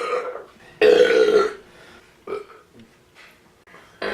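A man belching loudly after drinking beer: a long burp trailing off in the first half second, then a second long burp about a second in, and a short one near the middle.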